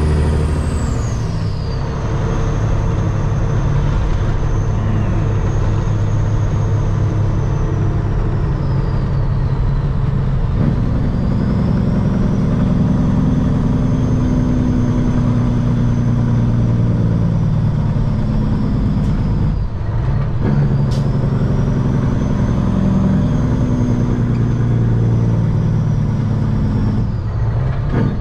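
2006 Peterbilt 379's CAT C15 diesel engine pulling the truck down the road, with brief breaks in the engine note about 20 and 27 seconds in, as at gear changes. A high whistle rises and falls between those breaks.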